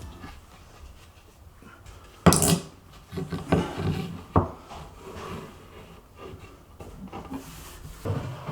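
Wooden knocks and rubbing as a cabinet toe-kick board is handled and fitted: one sharp knock about two seconds in, a run of lighter knocks after it, and a few faint ones near the end.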